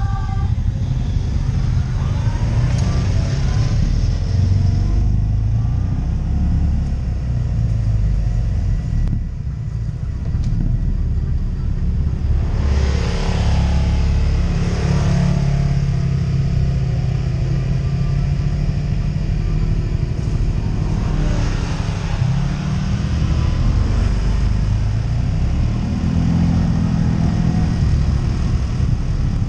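ATV engine running under way on a trail, its pitch rising and falling as the throttle changes, with a few spells of rushing hiss.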